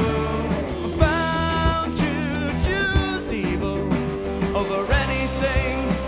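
Rock band playing live: drum kit, bass and electric guitars together at a steady beat, with a wavering melody line over the top.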